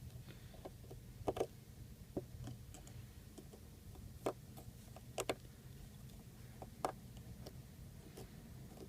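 Scattered small clicks and taps of a precision screwdriver working on an iPhone 4's frame while its corner screws are backed out, the sharpest a quick double click about a second in and another just past five seconds. A low steady hum runs underneath.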